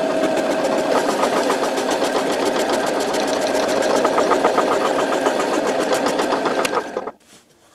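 Metal-cutting bandsaw running and cutting through a round metal bar under coolant, parting off a spacer: a steady mechanical running sound with a fast, even ticking. It stops abruptly about seven seconds in, after the piece has been cut off.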